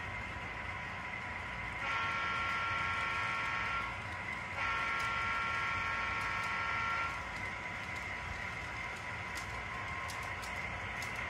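Electronic diesel horn from an HO scale CSX model locomotive's sound decoder, blown twice in two long blasts with a short gap between them. Under it is the steady running hum of the model trains on the track.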